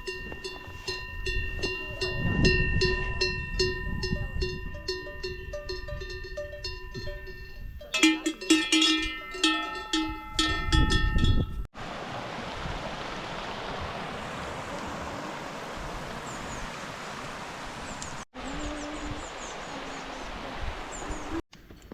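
Cow bells clanking and ringing over and over as grazing cattle move, with a few louder clanks after a cut about eight seconds in. After about twelve seconds this gives way to a steady rushing noise.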